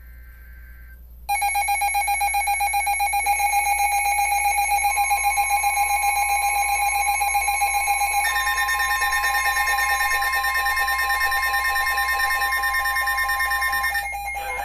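Emergency Alert System attention signal: a loud, steady two-tone alarm with a fast harsh beating, starting about a second in right after a short burst of the digital data header. It cuts off sharply about a second before the end.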